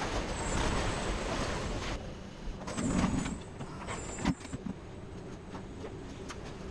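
Car assembly-line machinery: a steady mechanical hum and hiss, with three short high-pitched tones, a dull thud about three seconds in and a sharp knock just after four seconds.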